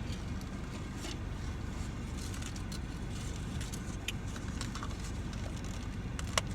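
Steady low rumble of a running car heard from inside the cabin, with scattered small clicks of handling and one sharp click near the end.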